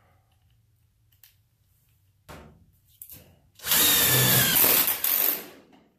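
Power drill boring through the steel of a replacement rocker panel and the body behind it, one hard burst of about two seconds with a whine, after two short blips. The holes take the screws that hold the new panel in place for welding.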